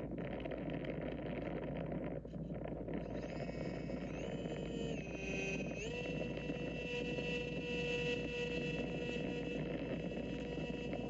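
Steady rush of wind over the R/C plane with its motor and propeller whining. About three seconds in the whine comes in, its pitch steps down and back up between four and six seconds in as the throttle changes, then holds steady.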